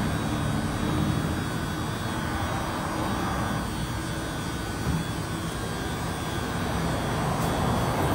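Steady machinery hum and rumble of a car turntable rotating a parked car, with a faint click near the end.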